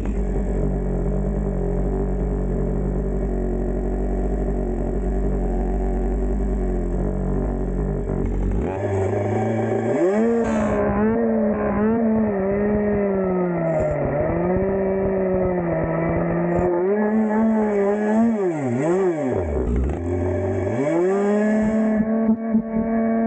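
A two-stroke chainsaw idling low and steady, then revved to full throttle a third of the way in and cutting, its pitch sagging and recovering as the chain loads up in the wood. Near the end it bogs almost to idle, then revs back up.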